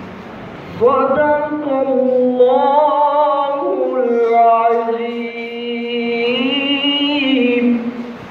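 A young male voice reciting the Quran in Arabic in melodic chant (tilawat) into a microphone. One long phrase starts about a second in and is drawn out on held, wavering notes that slide up and down in pitch, ending just before the close.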